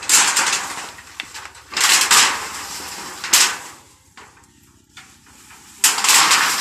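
Rusty corrugated metal roofing sheet being pulled off a shed roof and flexed, scraping and rattling in several loud bursts: at the start, about two seconds in, briefly past three seconds, and again near the end.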